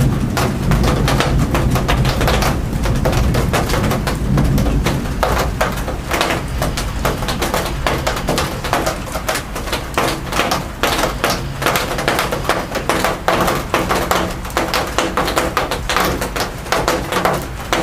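Raindrops tapping rapidly and irregularly on a hard surface close to the microphone during a thunderstorm downpour.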